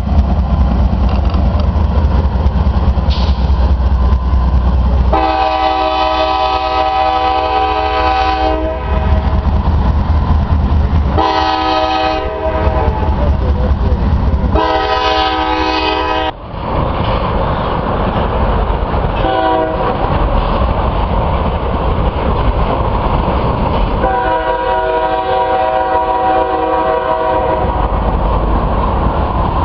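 A diesel-hauled freight train rolls past with a steady low rumble of locomotive engines and wheels. Over it the locomotive's multi-chime air horn sounds five blasts: a long one about five seconds in, two more, a brief short one, then a final long one, the long-long-short-long pattern sounded for a grade crossing.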